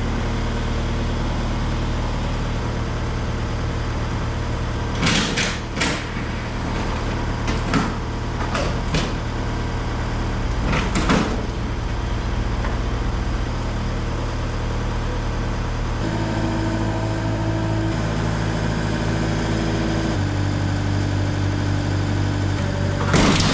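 A steady engine-like hum runs throughout and changes pitch twice in the second half, with scattered metallic knocks and clanks from work on a garage door panel, the loudest cluster near the end.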